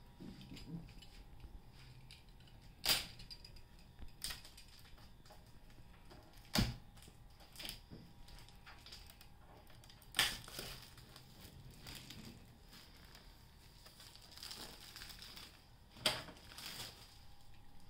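Plastic protective wrap on a new printer being cut with a utility knife and pulled at: crinkling and tearing, with about five sharp cracks spread through it.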